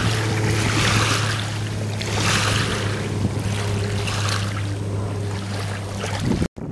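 Small waves lapping at the lake shore, swelling and washing about once a second, over a steady low motor hum; everything cuts off suddenly near the end.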